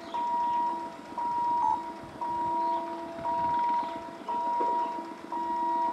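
Railway level crossing warning alarm sounding for an approaching train: an electronic beep of several steady tones repeating about once a second, each beep about half a second long.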